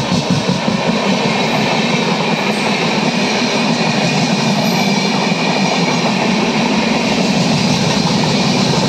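Passenger coaches of an express train passing close at speed: a steady, loud rumble and clatter of steel wheels on the rails.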